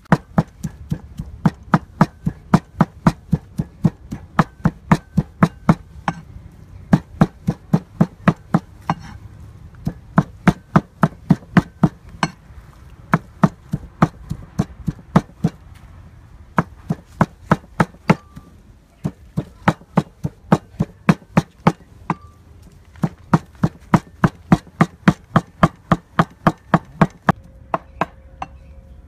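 Cleaver chopping raw pork on a wooden chopping board: quick, evenly spaced chops at about three a second, in runs broken by short pauses.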